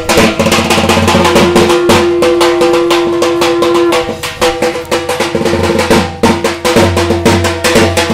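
Fast, steady drumming with ringing metallic tones over it, and a long held tone through about the first four seconds.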